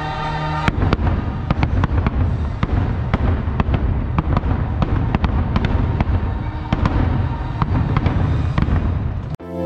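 Aerial fireworks display: a rapid, dense string of sharp bangs and crackles over a low rumble, starting just under a second in, with sustained music chords underneath. It cuts off abruptly just before the end, giving way to soft piano music.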